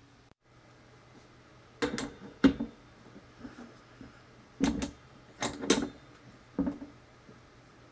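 Sharp metallic knocks and clunks as a small DC motor is handled and pushed into a drill stand's metal clamp collar, about nine in all, several in quick pairs.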